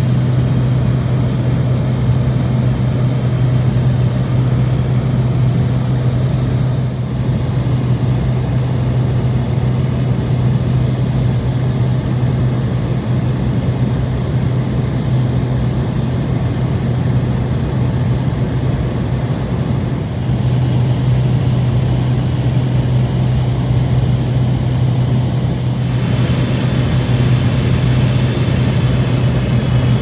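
Cabin noise inside a Cessna 208B Grand Caravan EX in cruise flight. The single turboprop engine and propeller make a loud, steady drone with a constant low hum.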